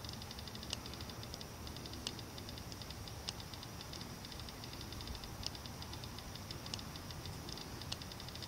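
Rapid, even, high-pitched ticking, with a louder click about every second or so, over a low rumble.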